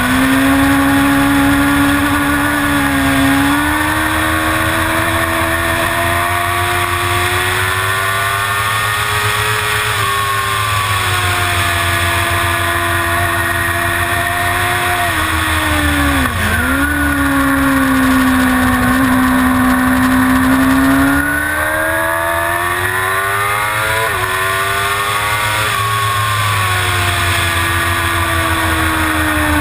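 Suzuki GSX-R750 inline-four engine running hard at racing revs, its pitch climbing under acceleration and falling off for corners. It dips sharply about halfway through, then winds up again, over a steady rush of wind.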